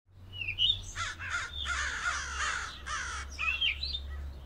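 Crows cawing, a run of harsh calls one after another, with a few higher whistled notes among them.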